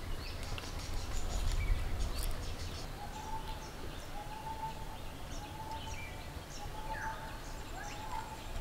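Outdoor birdsong: several birds chirping, and one bird repeating a short whistled note about once a second from about three seconds in. A low rumble runs under the first couple of seconds.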